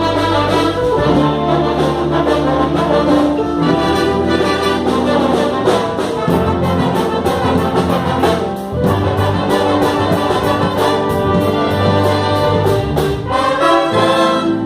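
A band playing, with brass instruments such as trumpets and trombones carrying the melody over a steady percussion beat. The music dips briefly about two-thirds of the way through.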